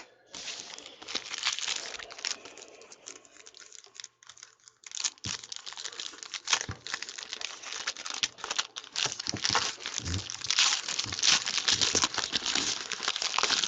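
Plastic wrapping being torn and crinkled as a trading-card box is opened, a dense run of crackling that eases briefly and then grows louder from about five seconds in.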